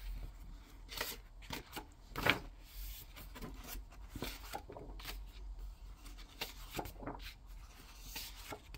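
Glossy pages of a large hardcover book being turned and smoothed flat by hand: a series of soft paper swishes and rubs, the loudest about two seconds in.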